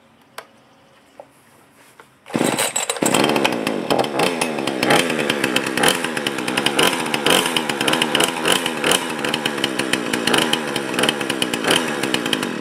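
A Remington Outlaw 20-inch two-stroke gasoline chainsaw starts about two seconds in and runs loudly, its engine speed rising and falling as the throttle is worked.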